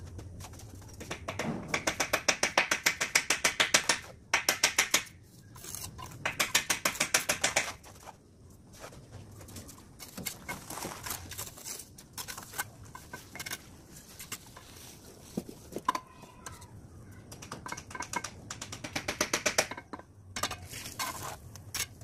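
Rapid bursts of sharp taps, about eight a second and one to two seconds each, from a mason's steel trowel tapping down bricks and mortar as a brick course is laid.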